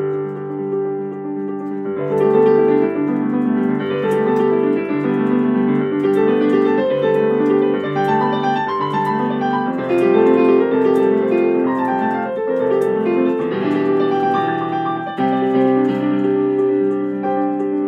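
Solo piano music played on a digital piano: quick melodic runs over sustained chords, growing fuller and louder about two seconds in.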